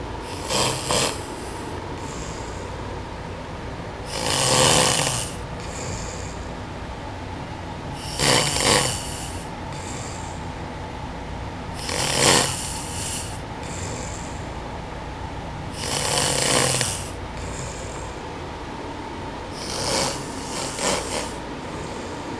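A man snoring in his sleep: a loud snore about every four seconds, six in all, each followed by a fainter sound about a second and a half later.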